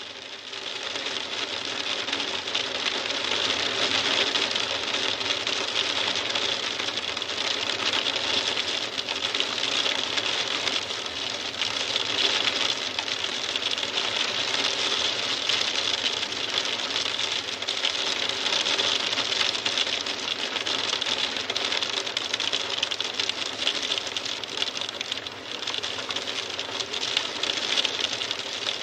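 Hail falling: a dense, steady rattle of countless small ticks, swelling in over the first couple of seconds and then holding even.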